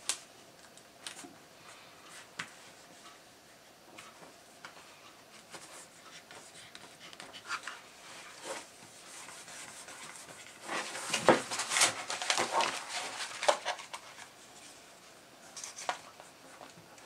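Plastic laminate film and its paper backing rustling and crinkling as they are handled and pressed onto a book cover, with light taps and clicks on the table. The loudest rustling comes about eleven to fourteen seconds in, with a shorter bit near the end.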